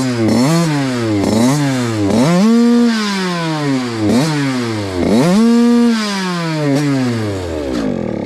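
A Cobra youth motocross bike's two-stroke engine being revved at a standstill. The throttle is blipped about seven times, the pitch jumping up and dropping back toward idle each time, with two longer revs held for about a second each.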